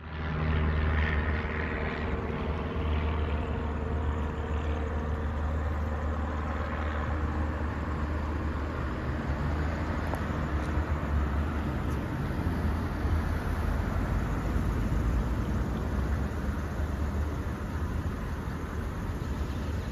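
Road traffic: cars and SUVs driving past on a multi-lane street, a steady tyre-and-engine rush over a constant low engine hum.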